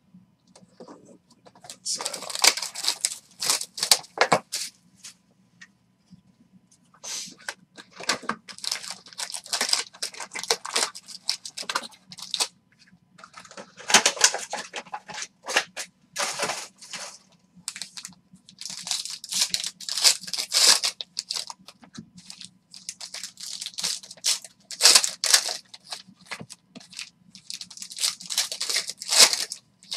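Foil trading-card pack wrappers torn open and crinkled by hand, in repeated bursts of ripping with short pauses between them.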